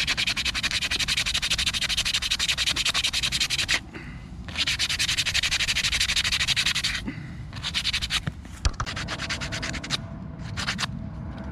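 Fast back-and-forth scraping strokes of a tool on a small wooden carving as its base is rounded off, in long runs broken by short pauses about four and seven seconds in, then shorter, lighter runs near the end.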